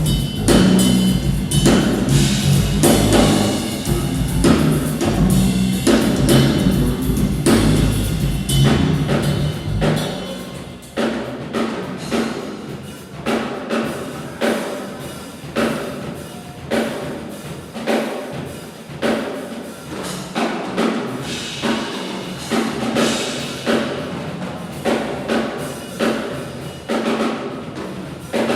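Drum kit played live in a busy pattern over heavy deep bass. About ten seconds in, the bass drops away and the drumming thins to sharp hits, with a strong accent roughly once a second.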